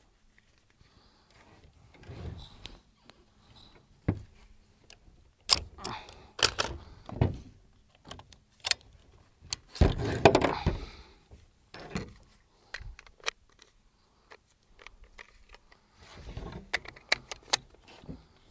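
An AR-15 rifle being handled on a bench to clear a jam: scattered metallic clicks and clacks from the action, with a longer, louder clatter about ten seconds in.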